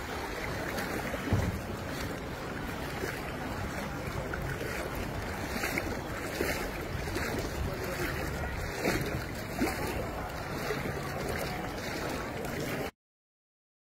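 Steady outdoor rushing noise of wind and floodwater, with wind buffeting the phone's microphone. It cuts off suddenly near the end.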